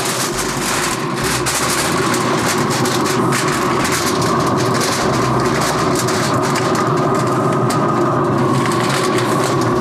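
Aluminium foil crinkling and rustling as it is pressed down over an aluminium roasting pan, over a steady rushing background noise.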